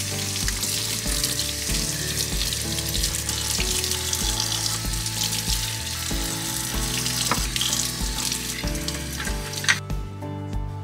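Kitchen faucet running as glass jars are rinsed and scrubbed under it in a stainless steel sink, a steady hiss of water that stops abruptly near the end. Quiet background music with a regular low beat plays underneath.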